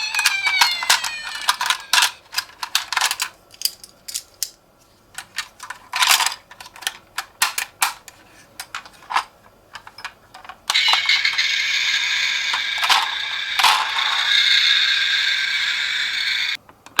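Toy ambulance minicars: a siren's rising and falling tones fade out in the first couple of seconds, followed by a run of small clicks and clatters. About eleven seconds in, a steady, shrill electronic tone comes on with clicks over it and cuts off suddenly near the end.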